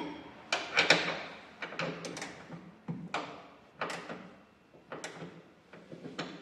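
Wrench and hand tools knocking and clinking against metal in irregular sharp strikes while the short shifter's mounting nuts are tightened.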